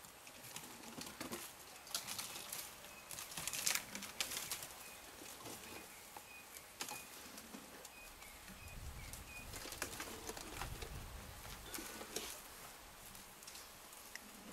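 Elephant bulls feeding on a pushed-down black thorn tree: irregular snapping and crackling of branches with rustling leaves, loudest a few seconds in. A bird calls a run of short, evenly spaced high notes for several seconds, and a low rumble comes in after the middle.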